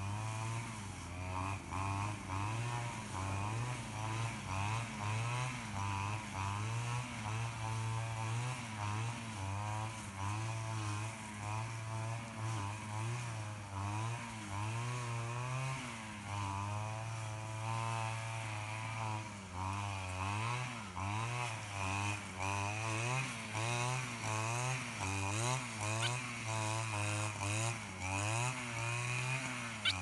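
A small engine running without a break in the background, its pitch wavering up and down as the speed rises and falls.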